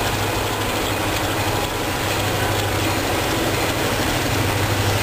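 Diesel locomotive engine running with a steady low hum that grows stronger about two seconds in, as a train draws near.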